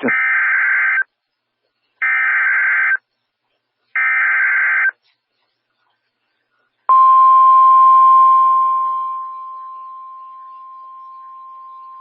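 NOAA Weather Radio WXK38 Emergency Alert System activation: three one-second bursts of SAME digital header data, about a second apart, coding the Fire Warning alert. About seven seconds in, the steady 1050 Hz warning alarm tone begins, loud at first, then dropping to a lower level about two seconds later and holding on.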